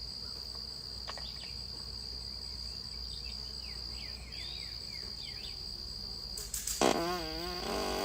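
Crickets or other insects trill steadily, with a few faint short falling chirps in the middle. About seven seconds in comes a loud, wavering, pitched fart lasting about a second.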